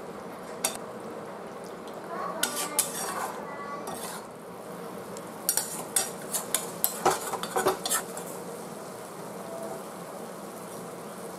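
Metal spatula scraping and clinking against a metal kadhai as paneer cubes are stirred through a thick masala gravy, in irregular bursts that cluster twice. A soft sizzle from the cooking gravy runs underneath.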